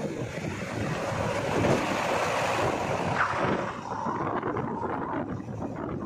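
Wind rushing over the microphone from a moving vehicle, mixed with the diesel engine of a JCB 3DX backhoe loader driving close alongside. The wind noise eases about four seconds in.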